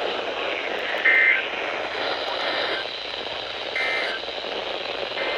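Steady radio hiss from a weather radio receiver left on a frequency whose transmitter has gone off the air. A short high beep sounds four times, about every second and a half.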